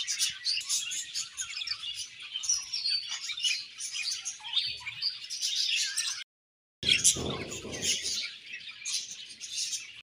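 Several budgerigars chirping busily, a dense run of high chirps that cuts out completely for about half a second just past six seconds in, then resumes.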